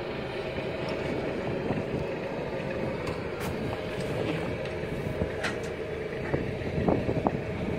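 A motorboat's engine running steadily under way, with wind and water noise, and a few low thumps near the end.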